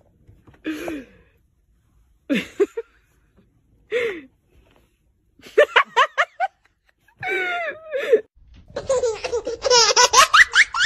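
A few short voice sounds, then, from about eight and a half seconds in, a long run of loud human laughter.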